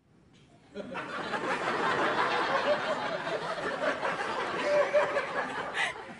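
Studio audience laughing, swelling about a second in and easing off near the end.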